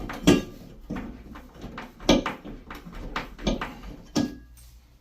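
Hand screwdriver turning a screw through a shelf bracket into a plasterboard wall anchor: a run of irregular clicks and scrapes with the turns, stopping about four and a half seconds in.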